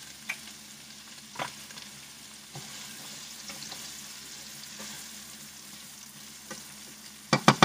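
Chopped onions frying in beef tallow on low heat: a steady soft sizzle with a few light clicks. Near the end comes a quick run of sharp knocks as the pan is stirred.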